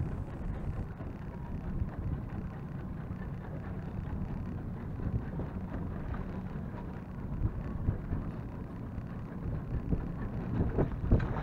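Steady wind rumble on the microphone, with a few louder gusts or bumps near the end.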